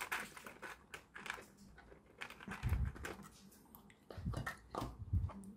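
Clicks and light clatter of hard plastic parts being handled: a 3D-printed propeller being fitted onto a steel shaft with pliers and the plastic hull turned in the hands, with a few dull knocks around the middle and near the end.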